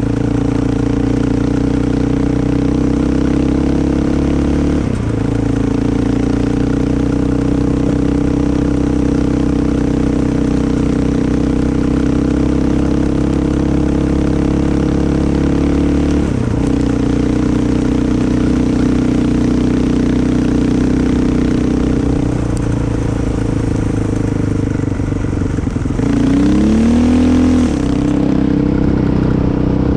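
Engine of an off-road trail vehicle running at a steady cruising speed. The pitch dips briefly twice, about five seconds in and again a little past the middle, as the throttle is eased. Near the end the engine revs up and falls back quickly.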